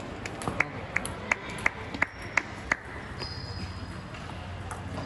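Table tennis ball struck in a steady rhythm: seven sharp pings, about three a second, stopping about three seconds in.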